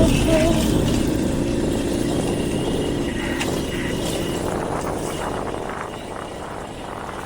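The engine of a moving vehicle, a steady hum and rumble that grows gradually quieter.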